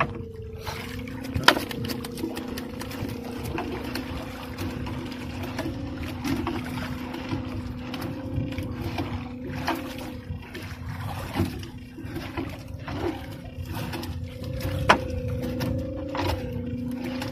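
Wet gill net being hauled aboard a small wooden outrigger boat by hand: netting rustling, water dripping off it, and scattered clicks and knocks against the hull, with two louder knocks, about a second and a half in and near the end. A steady hum runs underneath.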